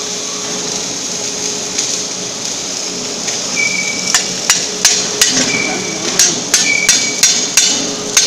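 A steady hiss runs throughout. About four seconds in, a run of about ten sharp metal knocks starts, roughly three a second, some with a brief ring, as a tool strikes a flame-cut steel plate to knock out the cut pieces.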